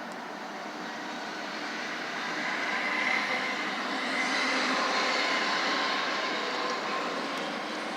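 A large vehicle passing close by, its noise swelling to a peak midway and fading again, with a faint whine.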